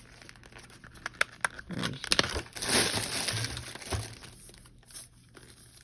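Crinkling and rustling of packaging with scattered small clicks and taps, as a screen protector box is opened and its contents handled.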